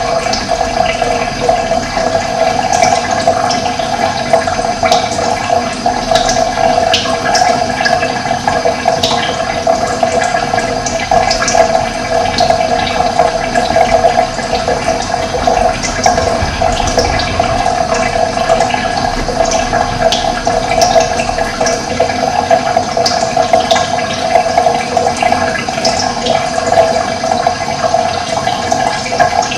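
Steady rush of running water, with short bird chirps scattered over it.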